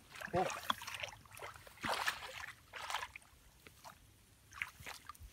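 Shallow muddy water sloshing and splashing in a series of short bursts as someone wades and gropes by hand through flooded grass.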